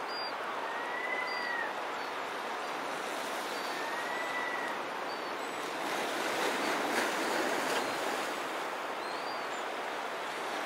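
Steady rush of surf on a shore, with bird calls over it: a drawn-out, arching whistle about a second in and again about four seconds in, and several short high chirps scattered throughout.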